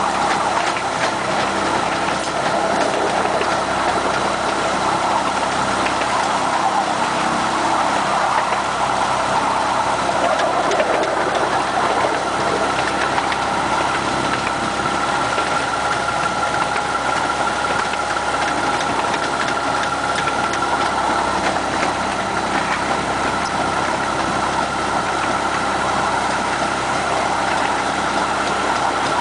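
Miniature railway diesel locomotive's engine running steadily as it hauls the train along, heard from right behind it. The drone holds an even level, with a couple of steady tones in it that grow a little stronger midway.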